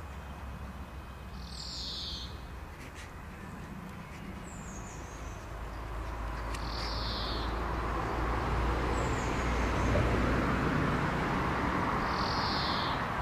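A bird calling in the background: a short high call repeated about every five seconds, with fainter high chirps between. A broad rushing noise builds through the second half.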